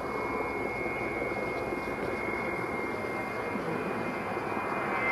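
Avro Vulcan's four Rolls-Royce Olympus turbojets heard in a distant head-on approach: a steady rushing jet noise with a thin high whine above it.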